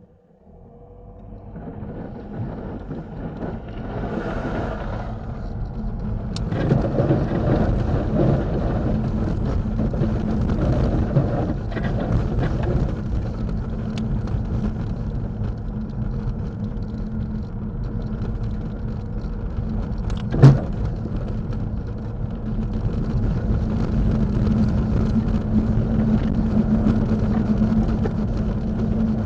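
Car pulling away from a standstill on a snow- and ice-covered road on Continental ExtremeContact DWS06 tyres, heard from inside the cabin: engine and tyre noise building up over the first few seconds, then driving on at a steady low hum. The tyres spin a little at the launch. A single sharp knock about twenty seconds in.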